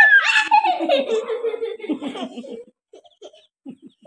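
A person laughing: one long giggle that trails down in pitch and fades out over about two and a half seconds, then a few faint short sounds.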